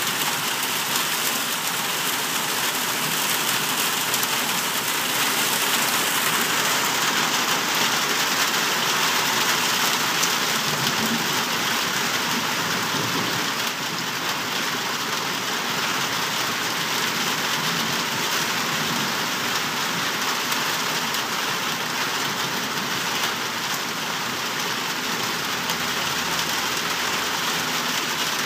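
Heavy rain pouring steadily onto trees and wet pavement: an even, dense hiss of downpour.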